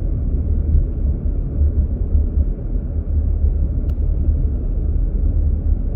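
A car being driven: a steady low rumble of engine and road noise, with one faint click about four seconds in.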